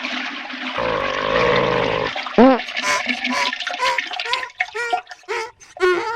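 Toilet flush sound effect, a loud rush of water with a low gurgling buzz under it. It ends about two seconds in and gives way to a run of short squeaky chirps that slide up and down in pitch.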